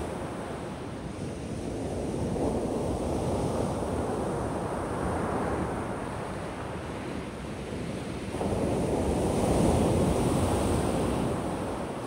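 Sea waves washing in and receding, with wind on the microphone; a wave surges louder about eight seconds in.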